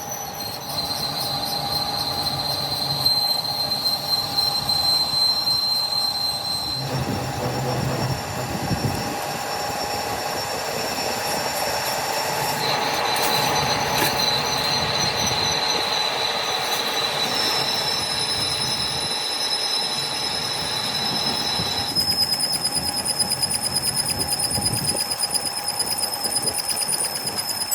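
Metalworking machinery running steadily with a high-pitched squeal of metal on metal. The squeal holds one pitch for several seconds and then jumps to another, four times in all.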